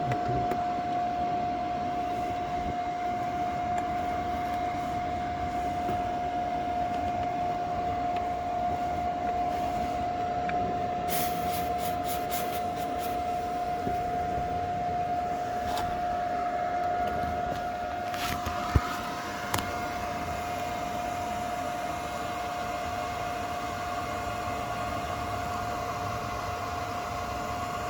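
A steady mechanical hum with a constant, even whine, with a few short clicks about eleven seconds in and again about eighteen seconds in.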